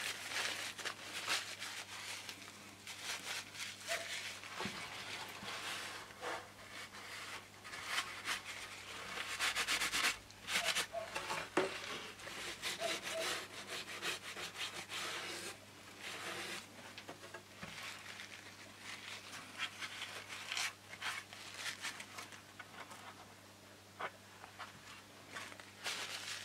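Paper tissue rubbed and wiped over the balsa wood of a model glider wing in repeated, irregular scratchy strokes, wiping away excess epoxy glue.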